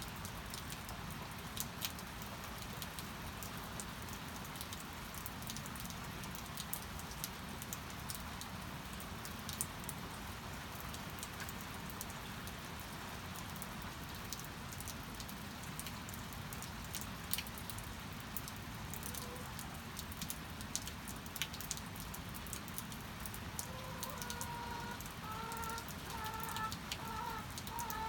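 Steady rain with scattered louder drips. Near the end a hen clucks in a quick run of short repeated notes.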